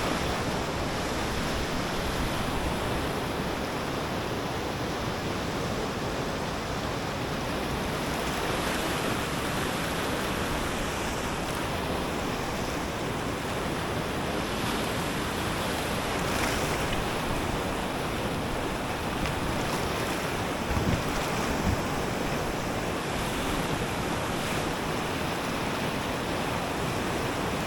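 Steady rush of river water with wind buffeting the microphone; a couple of short low knocks come about three quarters of the way through.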